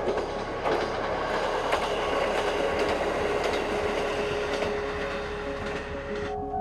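Single-car diesel railcar passing onto a steel girder railway bridge, its wheels clattering over the rail joints amid a steady rushing noise. The sound cuts off suddenly near the end.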